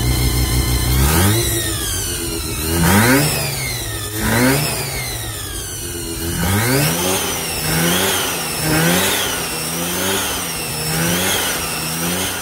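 Car engine with a Gilmore-style belt drive on its crank and alternator pulleys, revved from idle: four long revs in the first six seconds, then quicker blips about once a second. A high whine from the belt drive rises and falls with the revs.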